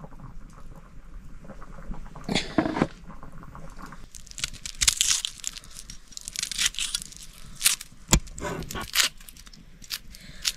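Irregular crinkling and crackling with scattered sharp clicks and taps, the sounds of handling food and utensils while cooking.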